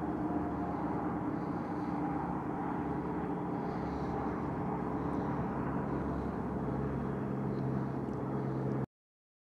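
A steady mechanical drone, like an engine, over a noisy rumble, with a low tone that grows stronger in the second half. It cuts off suddenly into silence about a second before the end.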